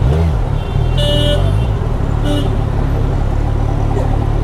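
Kawasaki Z1000SX's inline-four engine running at low speed in dense, slow street traffic, a steady low rumble. Vehicle horns honk briefly twice, about a second in and again a little after two seconds.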